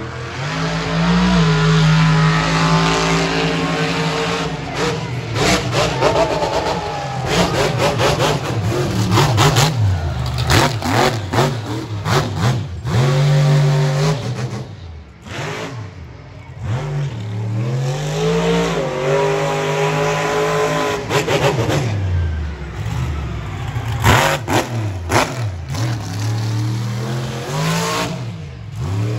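Monster truck engine revving hard over and over, its pitch climbing and dropping, with bursts of sharp cracks in between.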